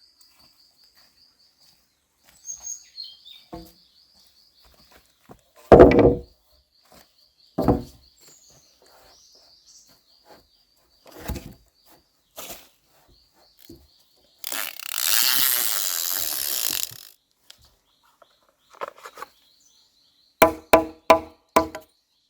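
Wood being worked by hand: single knocks and thuds at intervals, a few seconds of rustling hiss, then a quick run of ringing chopping strikes, about three a second, near the end. A steady high chirping trill runs in the background.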